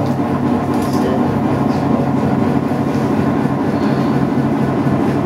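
Potter's wheel running with a steady low mechanical hum while clay is worked on it.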